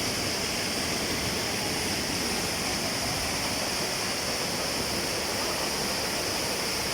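Waterfall rushing: a steady, even wash of falling water with no changes.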